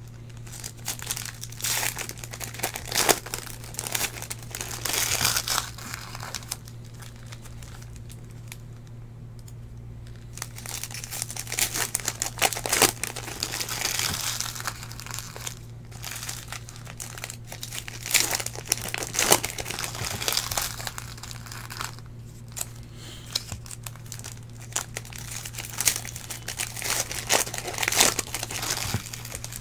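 Foil wrappers of Panini Prizm football card packs crinkling and being torn open by hand, in irregular bursts with short pauses, over a steady low hum.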